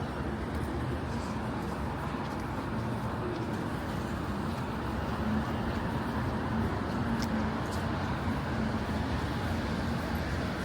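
City street traffic noise: a steady wash of passing vehicles with a low engine rumble, a faint engine hum swelling around the middle.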